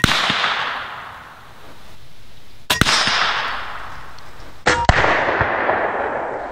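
Three sharp gunshot cracks, two to three seconds apart, each trailing off over a second or two. They come from a .22 PCP air rifle shot striking a .22 long rifle cartridge chambered in a loose revolver cylinder, setting the round off.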